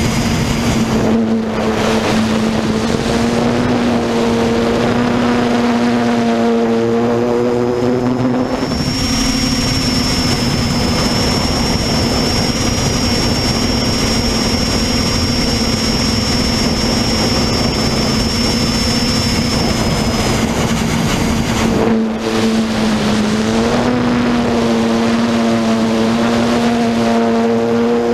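Multirotor drone's motors and propellers heard close up from the drone's own camera: a loud, steady buzz whose pitch shifts a little as the craft manoeuvres, with a thin high whine running through the middle stretch.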